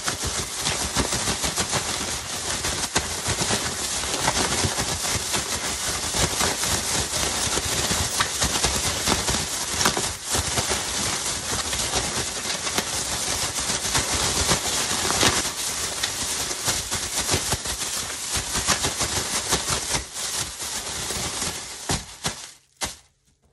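Air-filled plastic bag shaken hard, its thin film crinkling and crackling continuously while the eggplant pieces and potato starch inside tumble against it; the shaking stops just before the end.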